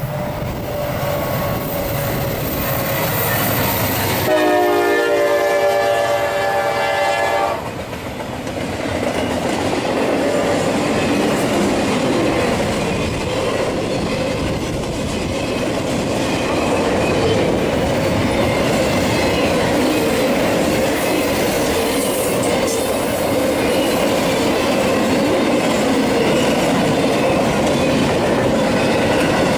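Locomotive air horn sounding one chord-like blast of about three seconds, starting about four seconds in, over the steady rumble and clatter of a passing train.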